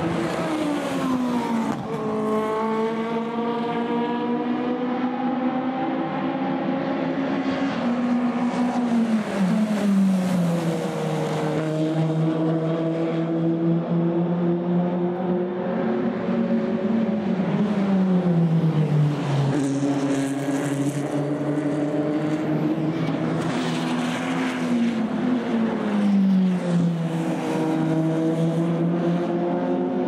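Sports-car engines on a race circuit, running without a break, the engine note falling in pitch about four times and climbing again in between as cars pass and change speed.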